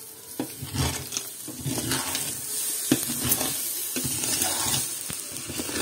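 Hot water poured into a stainless steel pot of rice and peas frying in oil, splashing and sizzling as it hits the hot pan, with a wooden spoon scraping and knocking against the pot several times.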